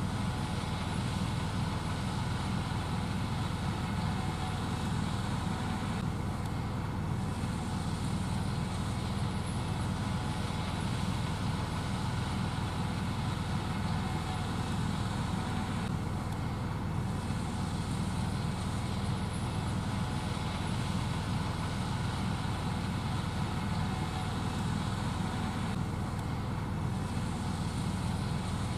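Gleaner S78 combine harvester running steadily while shelling corn: a continuous deep machine drone with no change in load.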